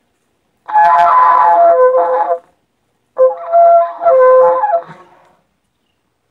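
A shofar blown in practice: two wavering blasts about two seconds each, the pitch shifting and breaking within each one.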